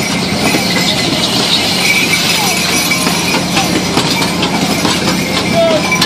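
Kiddie pony-cart carousel running: its wooden carts rattle and click as they roll around the circular track, over a steady machine hum, with fairground crowd voices in the background.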